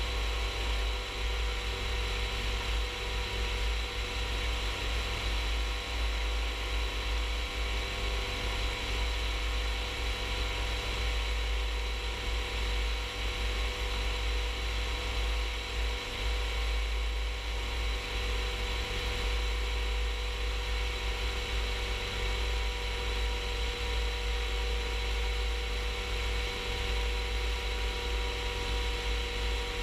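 Rans S-14 light aircraft's engine and propeller running steadily in cruise flight: an even drone with several held tones that do not change, over heavy wind rumble on the microphone.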